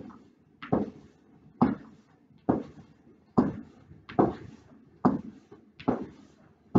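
Feet landing on the floor in a steady rhythm, a thud a little more than once a second, from alternating high-knee marching steps.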